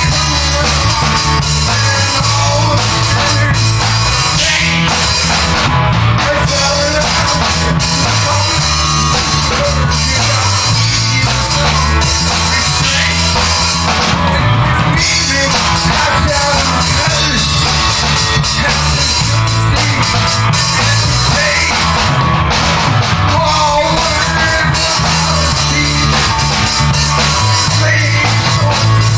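Rock music with a driving drum kit and heavy bass, playing steadily.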